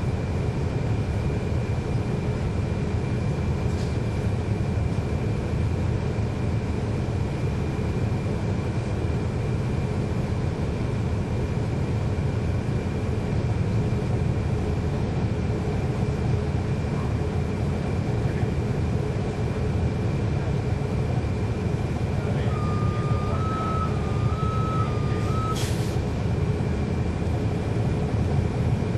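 Diesel bus engine, a Cummins ISL9, running steadily, heard from inside the bus as a heavy low rumble with a thin steady high whine over it. About 23 seconds in a short warbling electronic beep sounds for about three seconds, ending in a sharp click.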